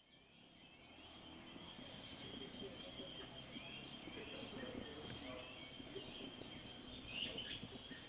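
Faint outdoor ambience fading in over the first couple of seconds: many short bird chirps over a steady thin high tone and low background noise.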